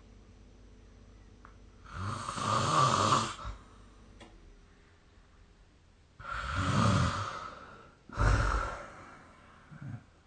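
Person snoring in sleep: three loud snores about two, six and eight seconds in, each lasting a second or more, with quiet breathing between.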